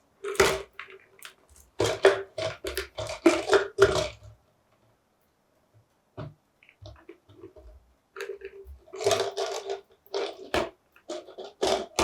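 A parrot's beak gnawing and scraping at a plastic parmesan cheese bottle, irregular crunching and clicking in bursts, with a pause of a few seconds in the middle.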